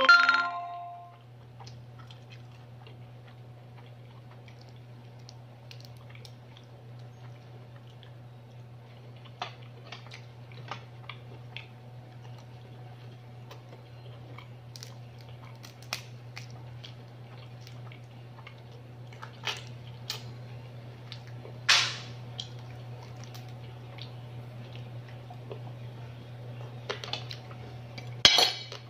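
Eating a cooked mud crab by hand: scattered cracks and clicks as the shell is pulled apart, with chewing. The sharpest cracks come about two-thirds of the way through and near the end. A steady low hum runs underneath.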